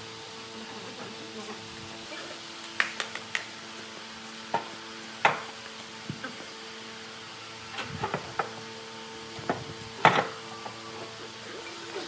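Metal table top of an old table saw knocking and clanking against its base as it is shifted and seated by hand: a scattered series of sharp knocks, the loudest about ten seconds in, over a steady hum.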